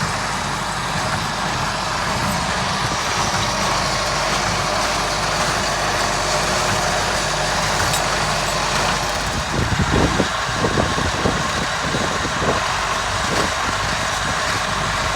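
A 1971 David Brown 990 tractor's engine running steadily, with a few irregular louder pulses about ten seconds in.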